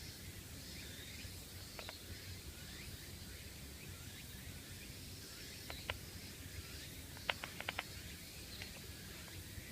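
Quiet outdoor ambience with many faint, high, short chirping calls, broken by a few sharp clicks: one about two seconds in, one near six seconds, and a quick run of four about seven and a half seconds in.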